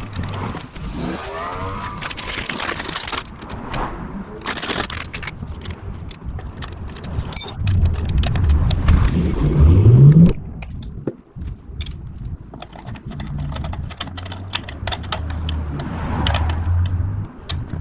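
Workshop handling noise: metal parts and hand tools clinking and rattling. About halfway through, a short whine rises in pitch and then cuts off.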